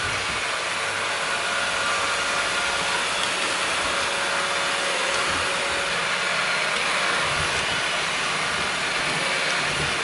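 Eufy robot vacuum running steadily, a constant even whir of its suction fan and brushes with a faint steady whine, heard close up as it works along the edge of the top stair.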